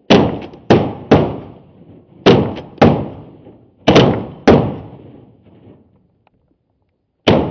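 Shotgun blasts from several duck hunters firing steel shot: eight loud shots, each with a short echoing tail. They come irregularly, often in quick pairs about half a second apart, with a pause of a few seconds before the last.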